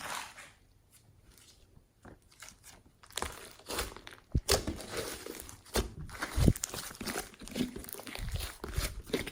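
Hands squishing and kneading slime: sticky clicks and small crackling pops, sparse for the first few seconds, then busy, with a few soft deeper squelches.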